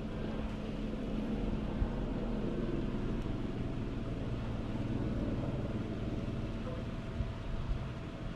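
Steady low drone of a motor running, with an even hum that holds one pitch throughout.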